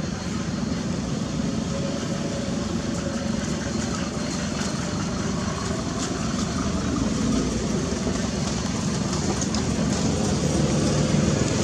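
Steady rumble of motor traffic, slightly louder near the end.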